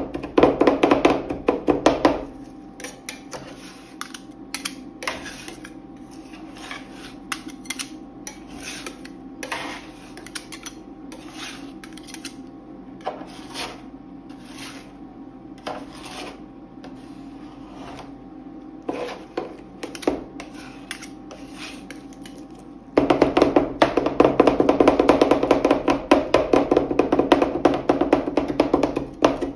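Two metal spatulas chopping fast against a steel rolled-ice-cream cold plate, a dense clatter of taps through the ice cream base. About two seconds in it changes to quieter scraping and spreading across the plate with scattered knocks, and near the end the fast chopping starts again.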